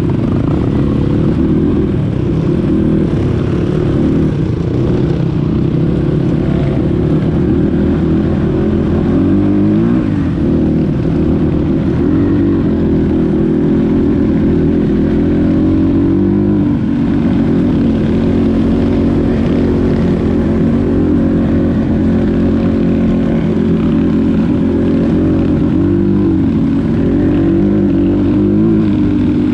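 Dirt bike engine running continuously under riding, its pitch rising and falling a few times as the throttle is opened and closed.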